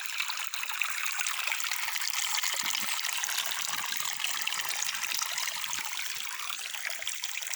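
Water running and trickling steadily, with a fine, even splashing.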